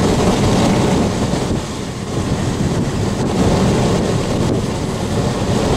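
Strong storm wind blowing across the microphone, over the low rumble of a vehicle driving.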